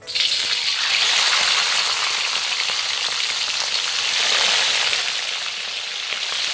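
Hot cooking oil in a wok sizzling loudly as whole spice-rubbed Indian mackerel are slid in to deep-fry. The hiss starts suddenly as the first fish hits the oil and then holds steady.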